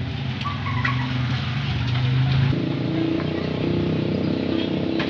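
A motor vehicle's engine running, its pitch stepping up sharply about halfway through, over a steady hiss of rain.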